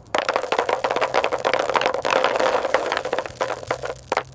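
Mentos candies rattling and clattering together, a dense, rapid run of clicks that stops shortly before the end.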